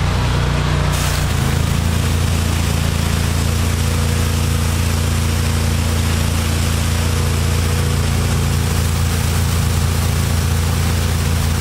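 A Hydro Tek hot water pressure washer's 27 hp Kohler engine running steadily at working speed. About a second in, its note shifts and a steady hiss joins it.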